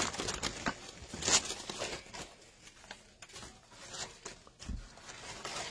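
Stiff wired ribbon and starched cotton fabric crinkling and rustling as they are handled, a run of short irregular crackles.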